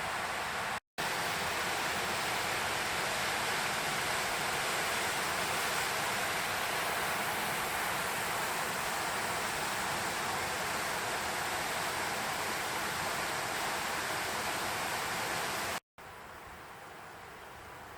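Steady rush of river water tumbling through a rocky gorge. It cuts out for a moment about a second in, and again near the end, where a much quieter outdoor ambience takes over.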